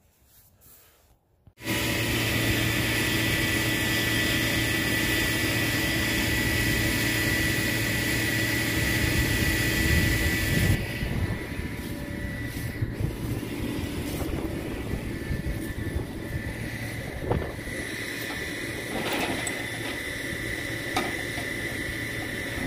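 Flatbed tow truck running steadily, a constant low hum with a steady high whine over a hiss. About halfway through, the hiss drops away, and a few metallic clanks follow as the tie-down chains are handled.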